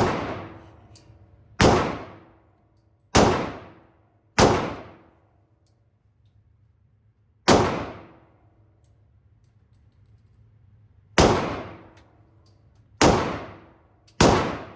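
A 10mm pistol being fired, eight sharp shots at uneven intervals over the stretch, each followed by a brief echoing decay.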